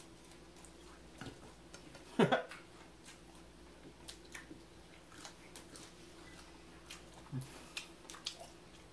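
Close-miked chewing and crunching of breaded fish sticks, with scattered wet mouth clicks and crackles. About two seconds in comes a brief low vocal sound, the loudest moment, falling in pitch.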